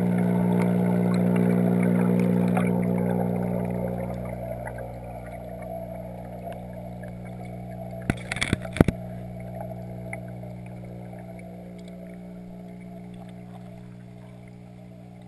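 Steady electric hum of aquarium equipment heard underwater through a waterproof camera housing, muffled, with bubbling water; it is loudest for the first few seconds and then eases off. A quick cluster of sharp knocks comes a little past halfway.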